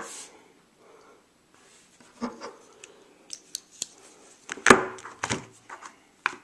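Sharp clicks and knocks of a United Cutlery Rampage folding knife being handled, closed and set into its cardboard box on a wooden tabletop. The loudest knock comes about two-thirds of the way through.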